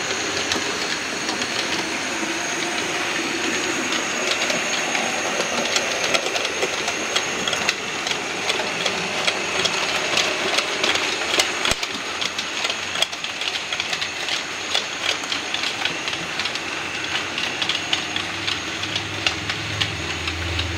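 Model railway train running along the track: a steady rumble of the model locomotive and coaches with many fine clicks of wheels over the rail joints. A low hum comes in near the end.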